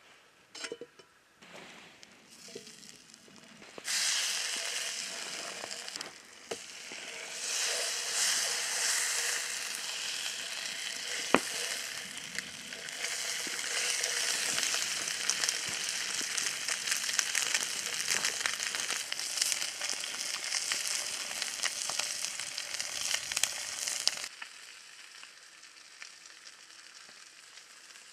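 Trout frying in butter in a pan over campfire coals: a loud hissing sizzle that starts about four seconds in, swells and eases a few times, and cuts off sharply a few seconds before the end. One sharp tick stands out a little before halfway.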